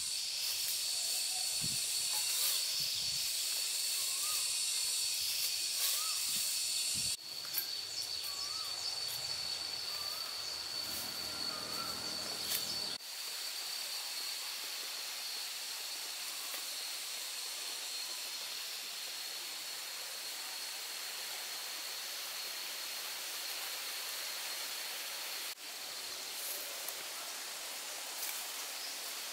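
Steady woodland ambience: an even high hiss with a constant high-pitched drone. Light rustling and knocks of plants and fish being handled in the first few seconds, and a few faint chirps midway.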